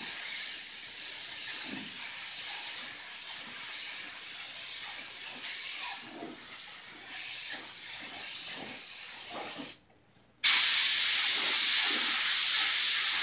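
Gravity-feed paint spray gun hissing as it sprays clear coat, in short trigger pulls roughly once a second. About ten seconds in the sound cuts out briefly, then returns as one steady, louder hiss.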